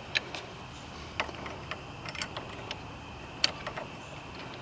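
Scattered light metallic clicks and ticks as the factory lug nuts are threaded by hand onto the wheel adapter studs, with one sharper click about three and a half seconds in.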